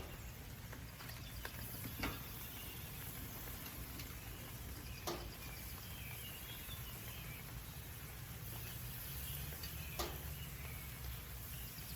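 Faint sizzling of tofu slabs on a hot gas-grill plate over a low steady rumble, with a few light clicks about two, five and ten seconds in.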